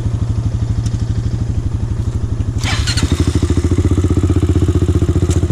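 ATV engine running close by with a steady, even pulse. About three seconds in, the engine note changes and gets louder as it takes more throttle.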